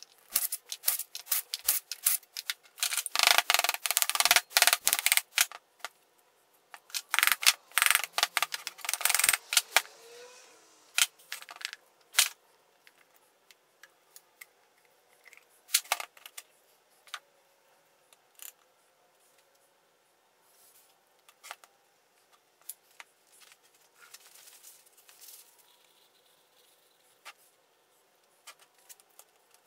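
A cordless power driver runs in two bursts of about two seconds each, backing out the bolts of a small engine's crankcase cover. These are followed by scattered clicks and clinks of metal parts and bolts being handled.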